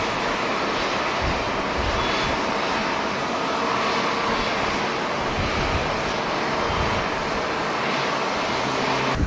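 Jet airliner engines heard as a steady, even rushing noise that cuts off abruptly near the end.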